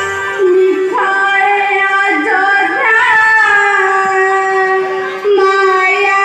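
A girl's high voice singing a slow Ramanataka song in long held notes, with new phrases starting about half a second in and again near the end.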